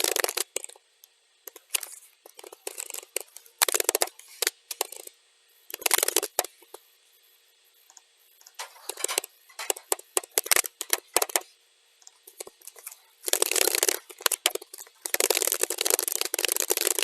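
Computer keyboard typing, sped up to double speed: bursts of rapid key clicks broken by pauses of a second or two, with a long unbroken run of typing near the end.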